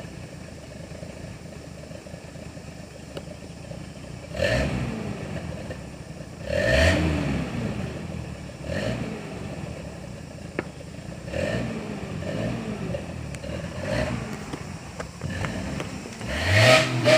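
Off-road 4x4 engine revving hard in repeated bursts, about every two seconds, as the vehicle works over rough ground; the last rev near the end is the loudest. A few faint knocks and scrapes come between the revs.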